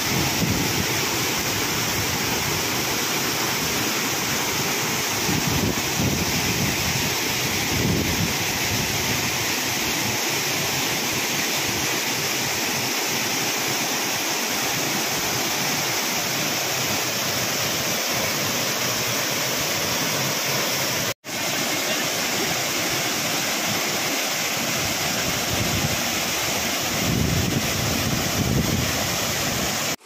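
Waterfall's steady rush of falling water, with now-and-then low rumbles of wind on the microphone. The sound breaks off for an instant about two-thirds of the way through, then goes on the same.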